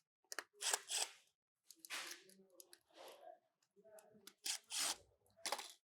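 Plastic parts handled and rubbed together as a door release is fitted onto a car's door card, with short scraping and creaking noises in a series of separate moments.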